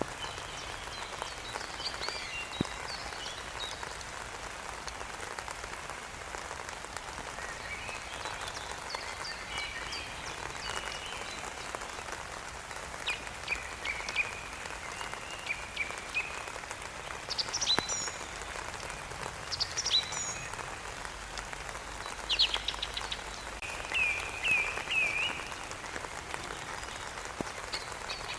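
Steady rain with songbirds chirping and calling over it. The calls are short chirps and quick sweeps, loudest in the second half, with a quick run of four or five repeated notes near the end.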